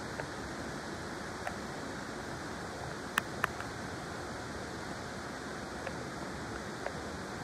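Steady rush of flowing river water, with two short sharp clicks a little after three seconds in and a few fainter ticks.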